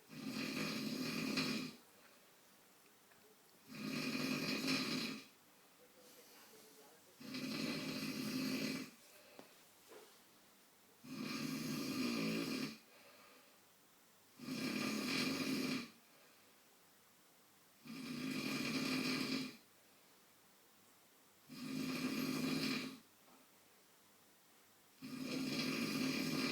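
A sleeping man snoring steadily, with eight snores in a regular rhythm. Each snore lasts about a second and a half and comes every three and a half seconds or so.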